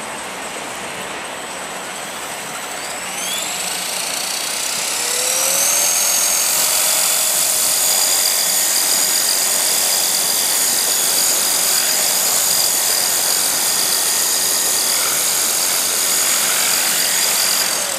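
CopterX CX450 electric RC helicopter's brushless motor and rotor head spooling up, a high whine rising in pitch for the first few seconds and then running steady and louder. It is running with the tail gyro gain trimmed back, so the tail is holding instead of shaking.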